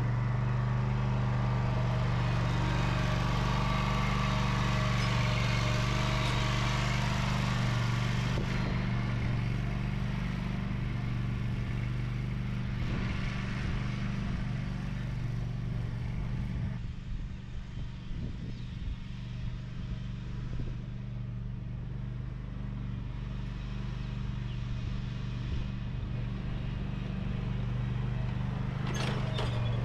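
Engine of an Exmark Laser Z zero-turn lawn mower running steadily. It is fuller and louder for the first eight seconds or so and somewhat quieter from the middle on.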